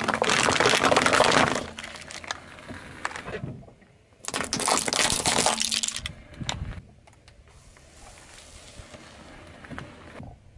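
A car tyre rolling over and crushing a row of paper cups, with loud crackling and crumpling for the first couple of seconds. A second burst of crushing and crackling comes about four seconds in as the tyre flattens a row of small objects, followed by quieter crackles and tyre noise on the asphalt.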